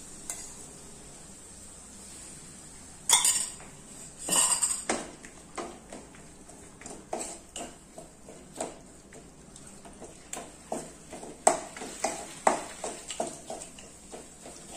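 Wooden spatula stirring in an aluminium kadai, scraping and knocking against the pan in irregular strokes. Two louder clattering bursts come about three and four and a half seconds in.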